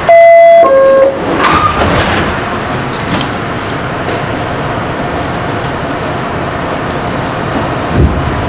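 R68 subway car's door-closing chime, two loud descending tones, followed by the steady running noise of the train.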